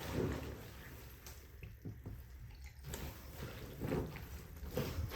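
Soaked laundry being pressed underfoot in a drained bathtub: faint, irregular wet squelches as water is squeezed out of the fabric.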